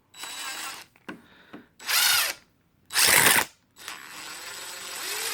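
Cordless DeWalt 20V Max 3/8-inch impact wrench spun in four short trigger pulls with no load. The third pull is the loudest and the last runs longest, about two seconds.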